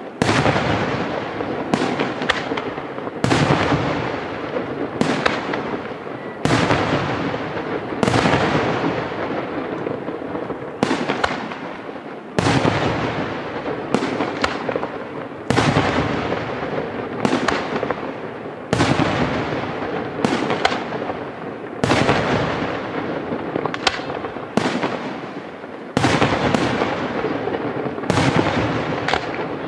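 Aerial firework shells bursting in quick succession, about one every second or two, each sharp bang trailing off in a long echoing decay.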